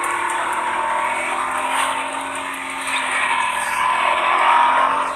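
Fiat Punto's engine running in first gear, heard from inside the cabin as a steady whine. It eases off slightly about two seconds in and swells again near the end.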